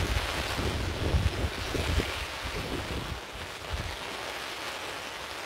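Strong wind gusting through steady heavy rain, the gusts buffeting the microphone with a low rumble for the first three seconds or so, then easing.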